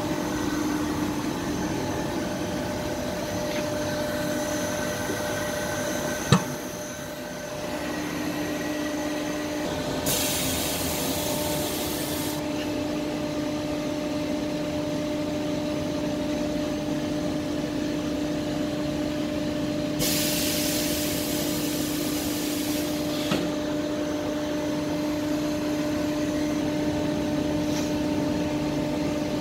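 Francis Shaw K1 Intermix rubber mixer running empty on a dry test: a steady machine hum with two held tones. A sharp click comes about six seconds in, and a few-second burst of compressed-air hiss comes about ten seconds in and again about twenty seconds in.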